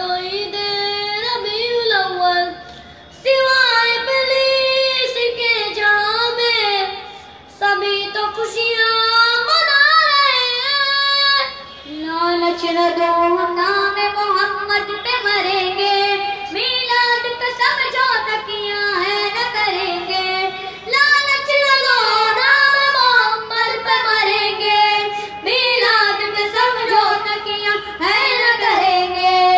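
Young boys singing an Urdu naat, a devotional song to the Prophet, in long held phrases with short breaks between lines. The two boys take turns at the microphone.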